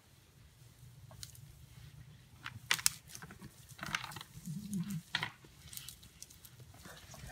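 Two rutting mule deer bucks fighting in dry grass: scattered sharp clacks and rustling, loudest as a pair of cracks about a third of the way in. A brief low wavering sound follows a little after the middle.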